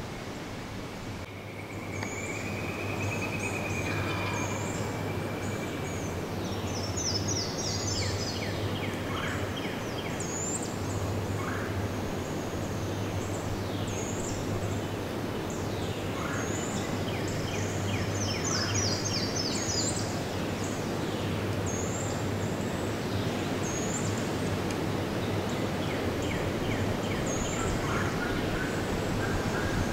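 Songbirds singing with many short high chirps and trills over a steady rushing background, while an Eastern wild turkey gobbles, most plainly near the end.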